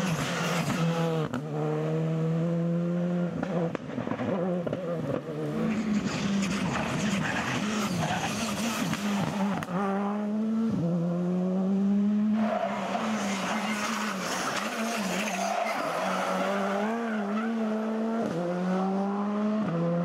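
Škoda Fabia R5 rally cars' turbocharged 1.6-litre four-cylinder engines at full throttle, pitch climbing steadily and dropping sharply at each upshift, several times over, with tyre noise from the sliding cars.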